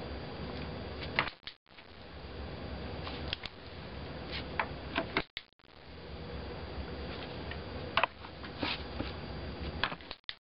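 Sharp single clicks every second or few seconds over a steady low background hum: a dog-training clicker marking the dog's moves toward the box. The audio cuts out briefly twice.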